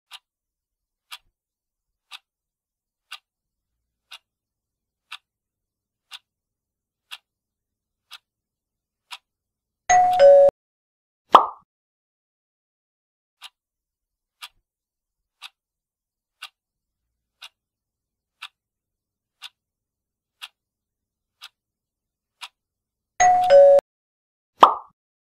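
Quiz countdown timer sound effect: a clock tick about once a second for ten seconds, then a two-note chime, higher note first, then a short loud hit. The sequence runs twice.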